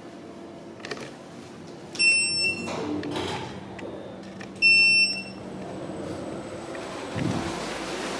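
Electronic lift beep: a single high tone sounding twice, about two and a half seconds apart, each about half a second long, over the lift's steady hum. A low thump comes near the end.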